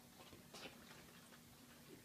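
Faint irregular clicking and ticking from a litter of English Mastiff puppies eating together with their heads down, over a faint steady hum.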